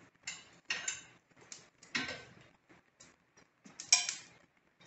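Iron clinks and knocks of a cast-iron pot's wire bail handle against the iron S-hooks and crane as the pot is hung over the hearth fire: a handful of separate metallic clinks, the loudest about four seconds in.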